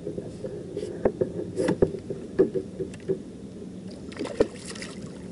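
Scattered knocks and clatters of rod and gear against a fishing kayak, with water splashing alongside as an angler reels in a hooked fish. A faint steady hum runs underneath.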